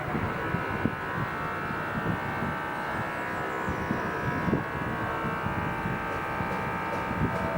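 Civil-defence warning siren sounding a steady held tone with several overtones, coming in abruptly and dying away near the end, over a low background rumble.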